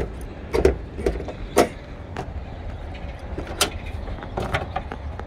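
A Honda Pilot's hood being released and raised: a string of sharp metallic clicks and clunks from the latch and the hood as it is lifted and propped open, over a steady low rumble.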